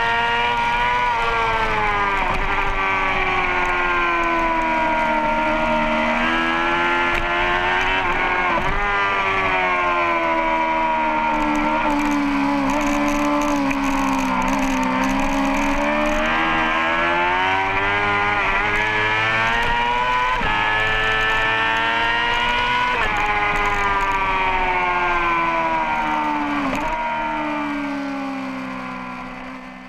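Superbike race motorcycle's engine heard from a camera mounted on the bike, revving up and down through the gears at racing speed, its pitch climbing and then dropping sharply several times. The sound fades out near the end.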